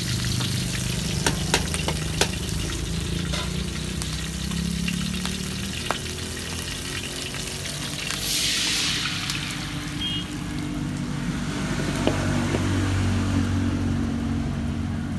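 Shrimp frying in lard in an aluminium pan, with scattered crackles. About eight seconds in, a loud burst of sizzling as bánh xèo rice batter is ladled into the hot fat, then it settles to a steady sizzle under a low hum.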